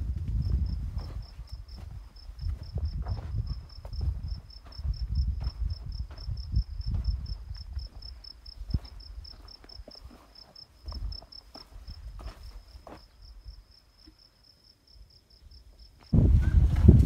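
An insect chirping in a steady run of high, evenly spaced pulses, several a second, with wind gusting on the microphone underneath. The chirping stops about sixteen seconds in, where much louder wind noise takes over.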